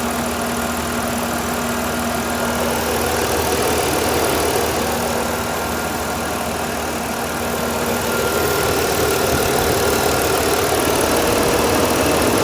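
The 3.8-litre V6 of a 1994 Chrysler Town & Country minivan running at a steady, quiet idle, with an engine flush mixed into the old oil so it can circulate before the oil change.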